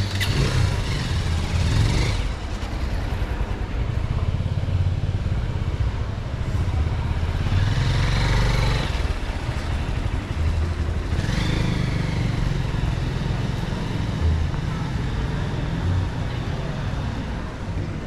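Motorcycle engines passing close by on a city street, one near the start and others about eight and eleven seconds in, each rising and then fading, over a steady low rumble.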